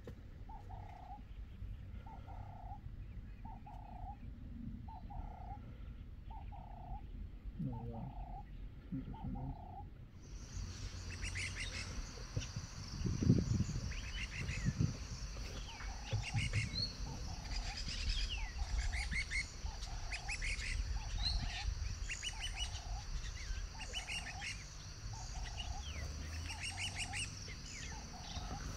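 A cheetah chirping: a short call repeated about once a second, breaking off for a few seconds in the middle. From about a third of the way in, small birds chirp over a steady high hum behind it, and there is a louder low rumble around the middle.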